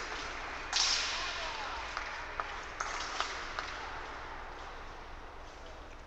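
Épée bout on the piste: a sudden sharp clash about a second in, then a run of light clicks and taps about two a second from blades and fencers' feet, with voices in the hall behind.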